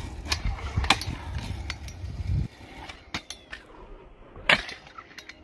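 Freestyle scooter wheels rolling on asphalt with a low rumble that stops suddenly about halfway through, with sharp clacks of the deck and wheels striking the road. The loudest clack comes near the end, as the scooter lands after being whipped around in the air.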